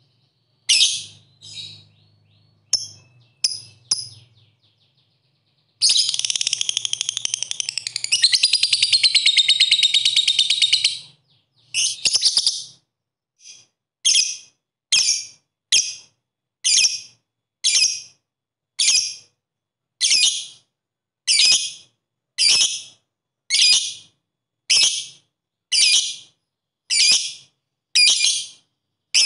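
Fischer's lovebird calling: a few sharp shrill chirps, then a rapid chattering trill lasting about five seconds, the long 'ngekek' that lovebird keepers train for. After that comes a steady run of short, shrill single calls, about one a second.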